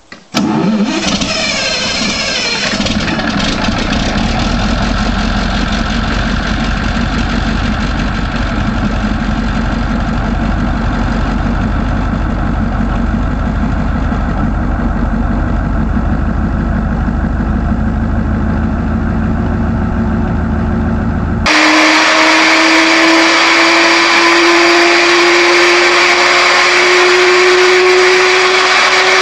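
Cummins K2000E V16 diesel engine cranking and catching within the first seconds, then running steadily with strong low end. It gives way abruptly to a Daimler-Benz DB 605 V12 aircraft piston engine running, its tone rising slowly.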